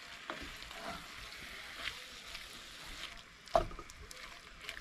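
Sliced mushrooms frying in butter in a pot, with a faint steady sizzle and small scrapes as a wooden spoon stirs them. One sharp knock about three and a half seconds in.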